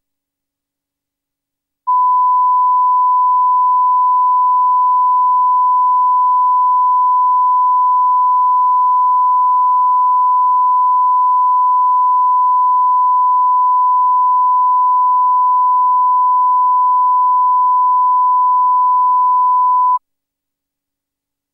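Broadcast line-up test tone on a programme's countdown leader: one steady pure tone that starts about two seconds in and cuts off abruptly near the end.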